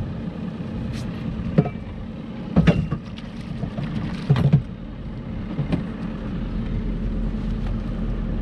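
Suzuki four-stroke outboard motor running with a steady low hum. Several sharp knocks and thumps on the boat's hull come through it, the loudest about two and a half and four seconds in.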